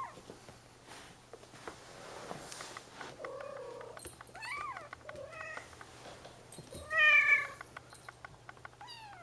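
Bengal kittens mewing, a string of short high-pitched mews that rise and fall in pitch, the loudest about seven seconds in, with faint scratchy ticks between them.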